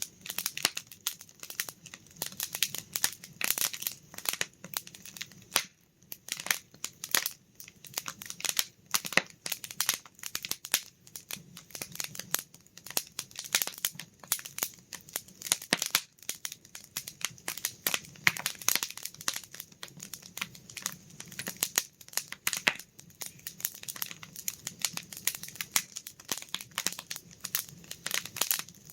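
Campfire crackling: burning wood snapping and popping in dense, irregular clicks, with a faint low hum underneath.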